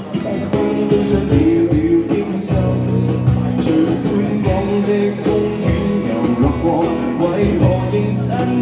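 Live band music: the instrumental intro of a song, with guitar prominent over a steady beat, before the vocals come in.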